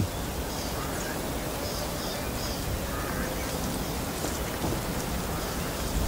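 Steady outdoor background noise beside a pool, with a few faint short high calls in the first half.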